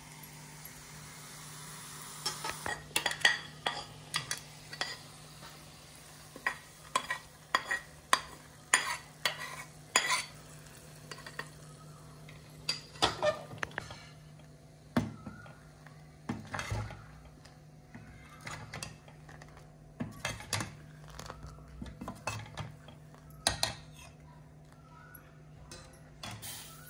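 A metal spoon stirring food in a metal kadai, clinking and scraping against the pan in quick irregular clusters, over a faint sizzle.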